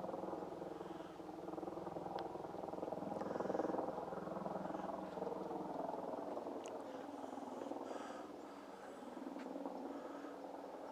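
Helicopter flying overhead: a steady rotor-and-engine drone with a fast, even rotor beat running through it.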